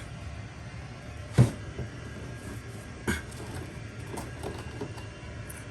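Plastic parts of a Hisense dehumidifier's pump filter housing being handled and fitted back together: a sharp knock about a second and a half in, another about three seconds in, and a few lighter clicks, over a low steady hum.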